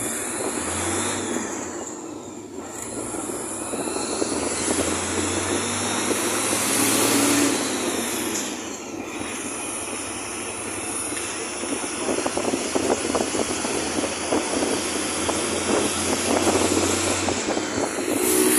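Inside a moving bus: steady engine hum and road noise, with frequent light rattles in the second half.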